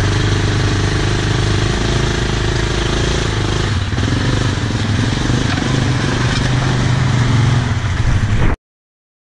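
ATV engines running, the nearest a Yamaha Grizzly idling steadily, with a slight change in the engine note about four seconds in. The sound cuts off suddenly near the end.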